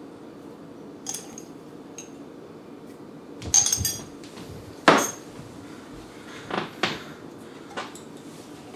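Scattered clinks and taps of kitchen utensils against dishes, the loudest about five seconds in, over a steady low hum.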